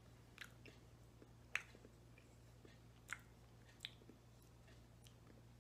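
Faint mouth sounds of someone eating a spoonful of soft frozen dessert: four or five short wet clicks and smacks of the lips and tongue, spaced a second or so apart, over a low steady hum.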